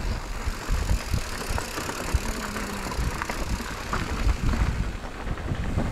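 Wind buffeting the microphone while riding a mountain bike, with irregular low rumbling and scattered small rattles and clicks from the bike on the trail.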